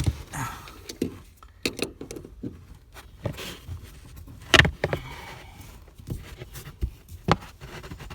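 Irregular metal clicks and knocks of a 14 mm wrench tightening the top nut on a Mercedes W210 rear shock absorber, with a few louder knocks, the loudest about four and a half seconds in.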